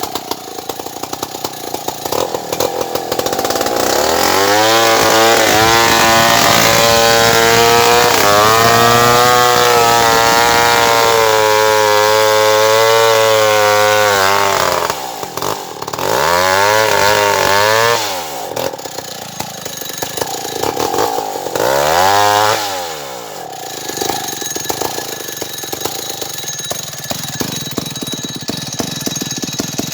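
Stihl 070 two-stroke chainsaw idling, then revved up to full speed and held there for about ten seconds. It drops back, is revved in two short bursts, and settles to idle.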